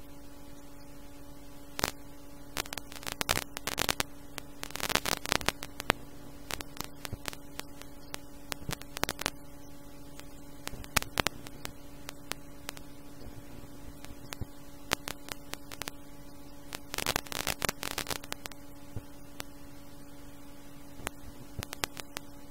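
Radio receiver output after the Rekowo transmitter has gone off air: a steady electrical hum with irregular clusters of crackling static, heaviest about five seconds in and again near eighteen seconds.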